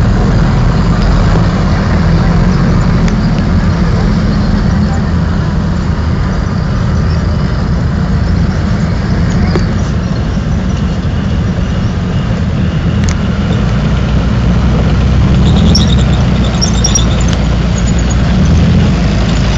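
Tracked armoured vehicles and main battle tanks driving past, a loud, steady deep rumble of engines and tracks. A few brief high squeaks come about three-quarters of the way through.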